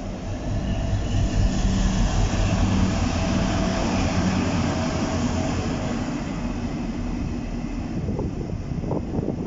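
British Rail Class 60 diesel-electric locomotive passing close by, running light engine: the engine's drone, with a steady tone in it, swells over the first couple of seconds and then slowly fades as the locomotive moves away.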